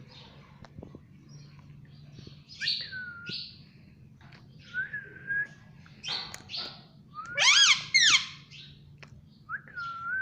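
Indian ringneck parakeet calling in a string of short chirps and whistled notes that glide in pitch. The loudest comes about two-thirds of the way through: a pair of high whistles that rise and then fall.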